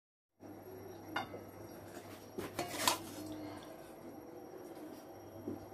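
Steel spatula scraping and clinking against a stainless-steel kadai as cooked chicken is spooned out: a few light clinks and scrapes, one about a second in and a cluster in the middle, over a faint steady hum.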